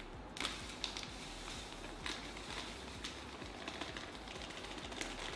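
Soft rustling and crinkling of a plastic bag of shredded coconut as it is handled and poured into a plastic measuring cup, with a few light clicks.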